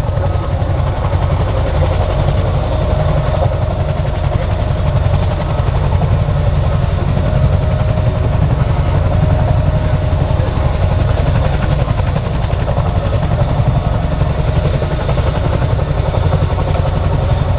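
Boeing CH-47F Chinook's twin rotors and twin turbines running in a low hover: a loud, steady, fast rotor beat with a thin steady whine above it.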